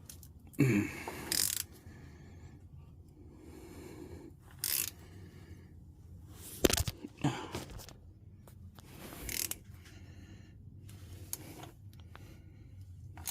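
Metal clicks and scrapes of an oil filter wrench being worked on a tight, just-freed oil filter. They come in short, irregular bursts with quiet gaps between.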